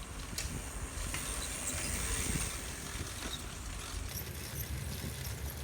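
Steady low rumble of a tandem bicycle being ridden, with a few faint clicks and rattles.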